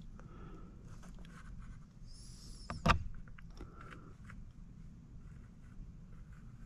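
Small knocks and scrapes of a paintbrush and palette being handled on a painting table, with one sharp knock about three seconds in, over a low steady hum.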